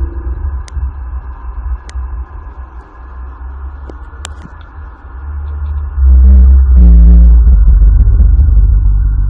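An unexplained low rumbling drone, of the kind called a 'strange sound in the sky' or 'apocalyptic trumpet'. About six seconds in it swells much louder with two short, brassy, trumpet-like blasts back to back, then keeps rumbling.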